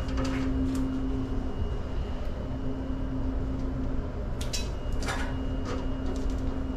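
Steady low machinery hum with a constant tone, overlaid by a few short clicks and rustles of gloved hands handling wires and wire strippers at an electrical panel, the loudest about five seconds in.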